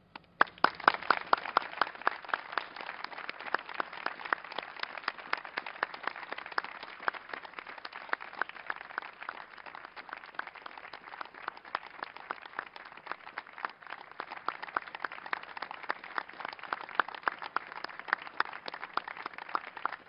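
A group of people applauding, with individual claps standing out; the applause starts suddenly about half a second in and keeps going steadily.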